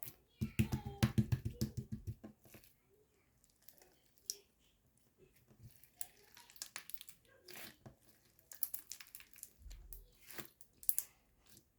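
Crunchy slime being squeezed and pressed by hand: a dense run of rapid crackles and pops for about two seconds, then scattered crunches and clicks.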